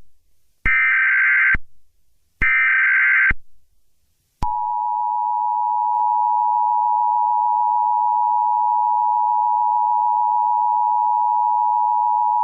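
Emergency Alert System SAME header data bursts: two loud buzzy bursts about a second long each, a second apart. About four seconds in, the EAS two-tone attention signal starts, a steady dual tone held for about eight seconds, announcing a new tornado warning.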